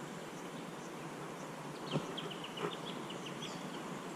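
Steady rush of a shallow flowing river. About two seconds in there is a sharp click, followed by a quick run of short high bird chirps.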